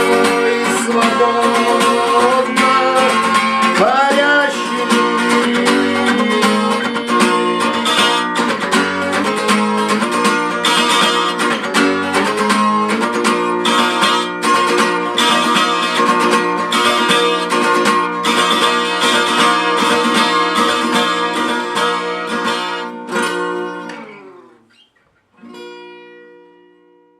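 Acoustic guitar playing a song's instrumental outro, steady picked and strummed chords that break off about 24 seconds in, followed by a single last chord ringing out and fading.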